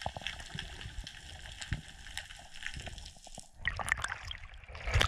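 Underwater hiss with faint crackling, then, about three and a half seconds in, water sloshing and splashing as a freediver breaks the surface.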